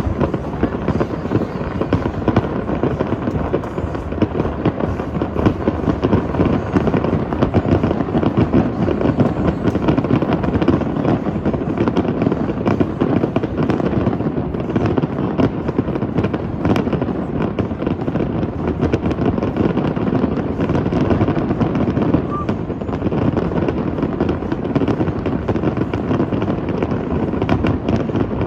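Aerial fireworks bursting in rapid, continuous succession: a dense barrage of bangs and crackles with no pause.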